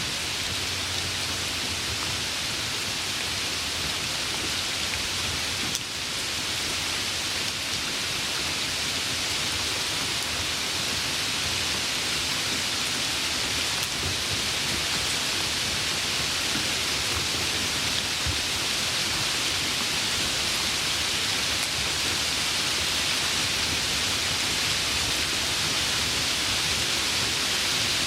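Steady rain: an even, unbroken hiss of falling drops, growing slightly louder over the stretch.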